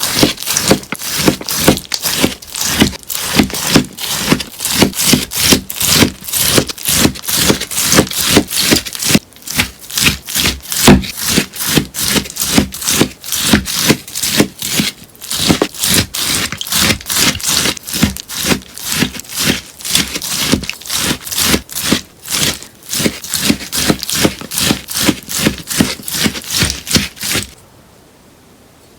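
Scissors snipping through a sponge in quick repeated cuts, about three a second, each cut crisp. The cutting stops shortly before the end.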